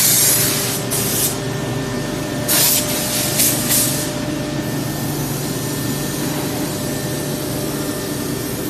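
Compressed air on a CNC nesting router hisses in four short bursts during the first four seconds, the kind of exhaust given off by pneumatic actuators. After that only the machine's steady hum continues, with a few faint steady tones in it.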